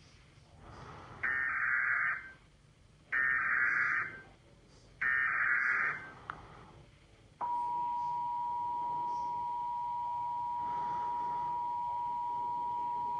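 Emergency Alert System SAME header: three one-second bursts of buzzy digital data tones about two seconds apart. About seven seconds in, the steady two-tone EAS attention signal starts abruptly and holds, marking the start of a new flash flood warning.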